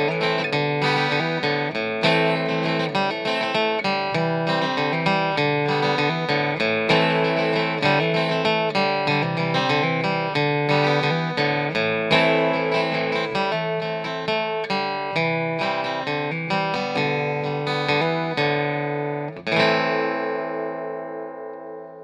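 Outro music played on plucked guitar: a steady run of quick picked notes, ending near the end on a final chord that rings out and fades away.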